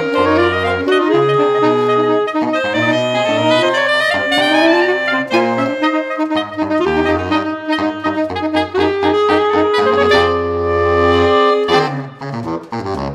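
Saxophone quartet playing a jazz-inflected piece: many short detached repeated notes and quick slurred runs in the upper parts over a low bass line. Near the end, long held chords break off into short, separate accented notes.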